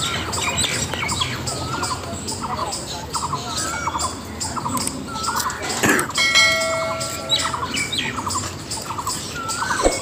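Birds chirping, the same short call repeating over and over. About six seconds in there is a sharp click and then a ringing chime lasting about a second, and another click near the end.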